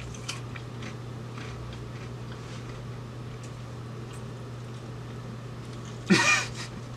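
Room tone: a steady low hum with a few faint clicks, then a short burst of a person's voice near the end.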